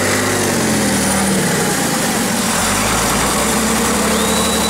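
Engine of a homemade off-road tractor (kardan) under load in mud, revving up, easing off about a second and a half in, and revving up again near the end.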